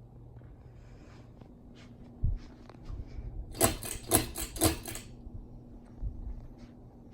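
Low steady hum of a Hampton Bay Hawkins ceiling fan, with a thump and a run of clicks over it; three loud sharp clicks come about half a second apart near the middle.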